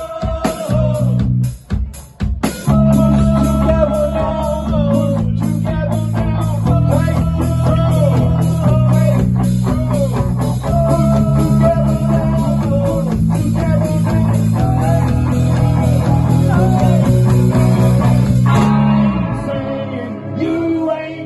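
Live rock band playing: electric guitar, bass guitar and drums with a steady hi-hat beat, with a short break about two seconds in before the full band comes back in.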